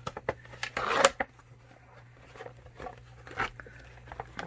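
A product box and its packaging being opened and handled: scattered crinkles, scrapes and clicks, the loudest about a second in, then quieter fumbling with a few light clicks.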